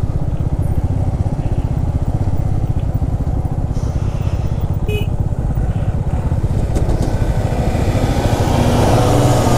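Royal Enfield Himalayan's 411 cc single-cylinder engine running steadily while riding, heard from the rider's seat. About eight to nine seconds in, a deeper, louder engine note joins as a truck passes close alongside.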